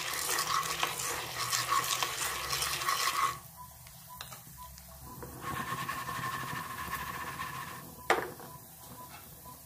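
A wooden spatula stirs raw popcorn kernels with oil and salt in a nonstick kadhai, the kernels rattling and scraping across the pan for about three seconds. After a short pause, a second stretch of stirring follows, then a single sharp knock near the end.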